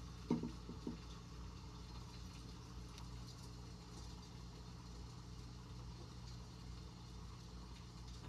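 Faint steady low electrical hum, with two soft knocks near the start as a glass dish is handled.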